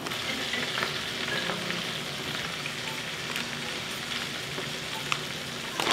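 Hot oil sizzling steadily, with small scattered pops, as battered oyster mushrooms deep-fry for vegan fried chicken.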